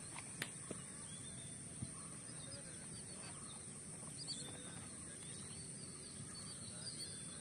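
Quiet open-air ambience: faint, scattered bird chirps over a steady high-pitched drone, with a few short clicks in the first two seconds.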